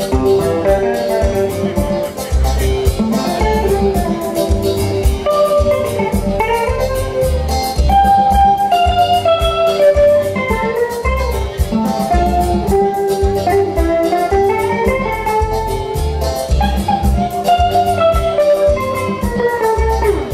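Live electric guitar playing a melodic lead line over a steady bass and drum beat.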